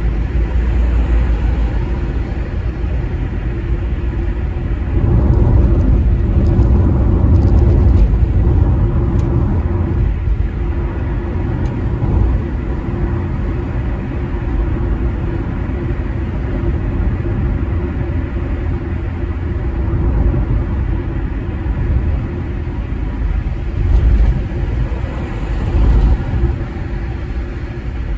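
Steady low rumble of tyre and road noise with engine hum, heard from inside a car cruising on a motorway. It grows louder for a few seconds about five seconds in, and swells briefly twice near the end.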